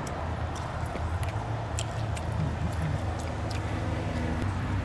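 Steady low rumble of distant traffic, with faint scattered clicks of chewing close to the microphone.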